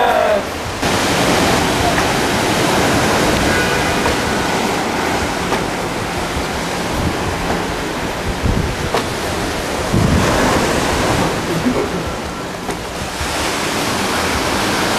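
Steady rushing outdoor noise, with two brief low thumps a little past halfway through.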